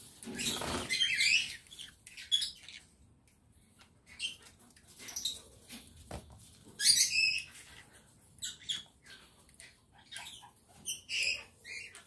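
Small caged parrots, green-cheeked conures among them, giving short, high chirps and squawks at irregular intervals, the loudest about seven seconds in, with a brief flutter of wings at the start.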